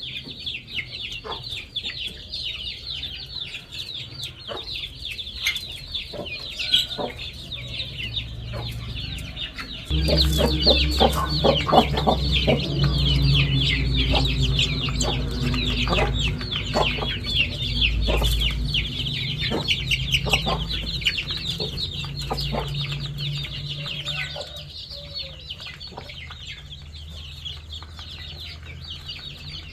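A flock of young chicks peeping continuously, many high, short, falling calls overlapping, with scattered clicks. From about ten seconds in to about twenty-four seconds, a louder low steady hum runs underneath.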